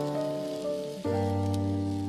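Instrumental music from the song's closing outro, with no vocals: sustained chords with a deep bass note. The chord changes about a second in and the level slowly fades.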